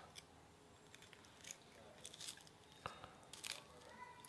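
A few faint crackles and light clicks as a knife and fork press into the crisp skin of a pan-fried kingfish fillet in a ceramic bowl.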